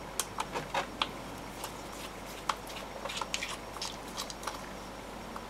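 Small screwdriver turning a screw out of a metal earthing tag inside a plastic speaker base: a run of light, irregular clicks and ticks.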